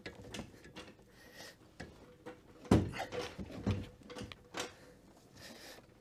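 Scattered metallic clunks and knocks as a Peugeot 306 HDi gearbox is shifted into position on a jack, with one sharp knock about two and a half seconds in.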